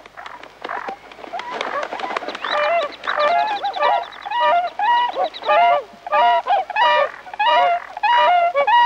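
Bewick's swans calling in a triumph display after driving off a rival: repeated loud calls, about two a second, starting quieter and building up from about two seconds in.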